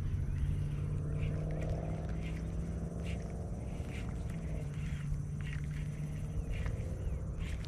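An engine running steadily at a low, even pitch, with faint short chirps or clicks scattered over it.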